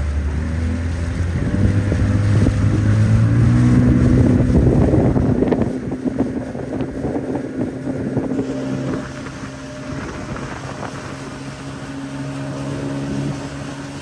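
CraigCat's outboard motor running under way. Its pitch climbs over the first few seconds as the boat speeds up, then holds steady. Wind buffets the microphone.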